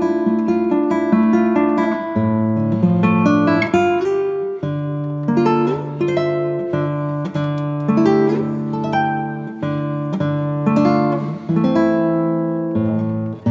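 Background music: acoustic guitar picking a steady run of notes over a repeating bass line.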